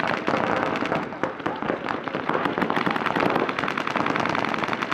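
Several paintball markers firing rapid, overlapping strings of shots without a break.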